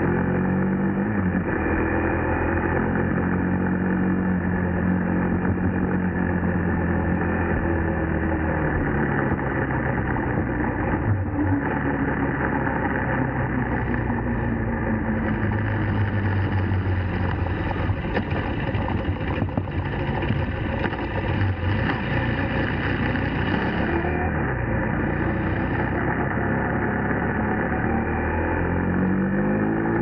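KTM 390 Duke's single-cylinder engine running under way, its note holding steady for stretches and rising and falling several times with the throttle.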